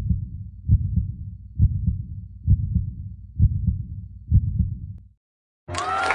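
Heartbeat sound effect: low lub-dub double thumps, six pairs about one a second, stopping about five seconds in. Near the end music with crowd cheering and applause starts abruptly.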